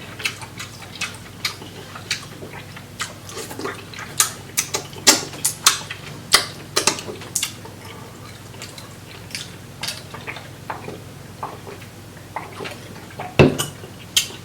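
Close-up wet eating sounds from sauce-coated seafood boil being handled and eaten: irregular sticky clicks, smacks and squelches. A heavier knock comes near the end.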